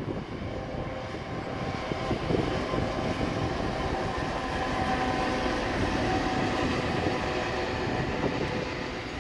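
Diesel locomotive hauling a container freight train past, engine and wagons running with a steady noise and a few faint held engine tones. It grows louder over the first couple of seconds, then stays steady.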